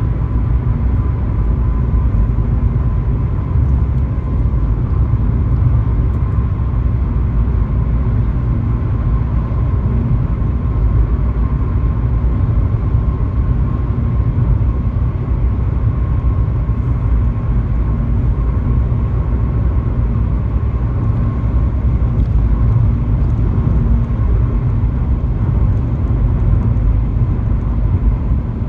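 Car driving on a highway: steady road and engine rumble, with a faint steady whine above it.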